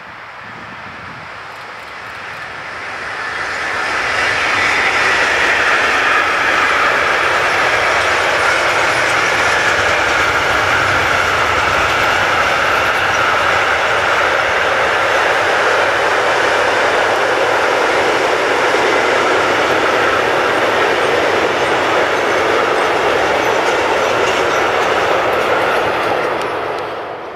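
Freight train hauled by an electric locomotive passing close by. The noise swells over the first few seconds as it arrives, then holds as a steady rolling noise of the hopper and tank wagons on the rails, and drops away near the end.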